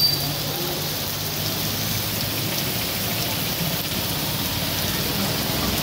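Heavy rain pouring steadily, a dense, even hiss of rain falling on the street and buildings.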